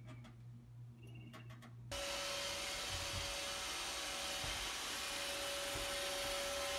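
Robot vacuum cleaner running: an even whir with a steady whine, cutting in suddenly about two seconds in. Before it, faint ticking over a low hum.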